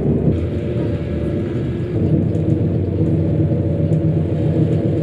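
Steady low rumble of a moving passenger train heard from inside the carriage.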